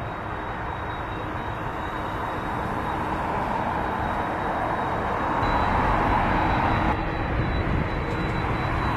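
Boeing 767 jet engines running at taxi power, a steady rushing noise with a faint high whine, growing gradually louder as the airliner turns toward the listener.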